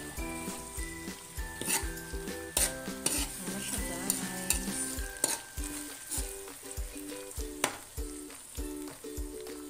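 Shrimp paste sizzling in hot oil in a wok as a metal spoon stirs and spreads it, with scrapes and clinks of the spoon against the pan.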